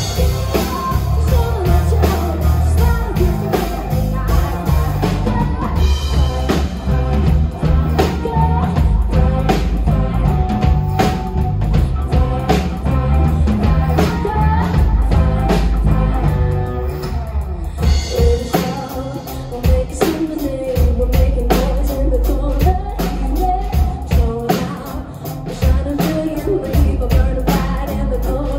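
Live rock band playing: a woman singing into a handheld microphone over drum kit, electric guitars, bass guitar and keyboard.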